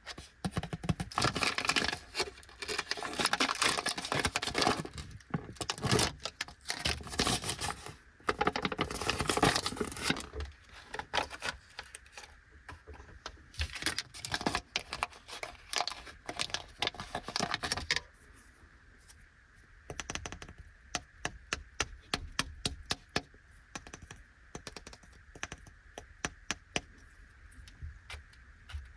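Plastic candy wrapper of an Anpanman chocolate lollipop crinkling and tearing open, with sharp crackles, followed by lighter clicks and taps of the package being handled. The sound thins out after about eighteen seconds.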